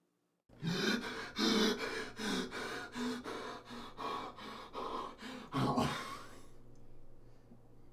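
A man gasping and sobbing in quick, ragged breaths. The breaths start about half a second in, run fast and uneven, end with one louder gasp around six seconds in, then die away.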